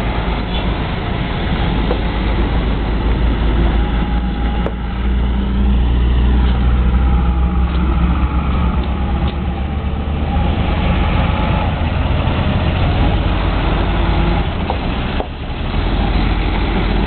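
Heavy armoured military trucks driving past close by one after another, their big diesel engines running loud and steady, with a gear whine rising and falling midway.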